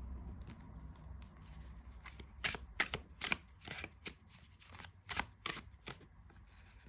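Tarot cards being shuffled and handled: a run of quick snaps and flicks of card stock, starting about two seconds in.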